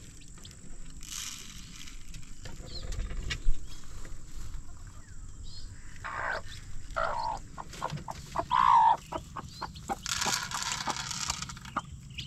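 Brown hen with young chicks giving short low clucks, with a few faint high peeps from the chicks, clicks and rustling of straw, and a rattle of feed being poured near the end.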